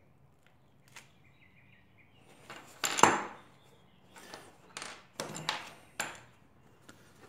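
Metal engine parts being handled on a workbench: one loud sharp knock as the motorcycle cylinder head is set down, then several lighter knocks and clinks as its cam cover and small parts are moved about.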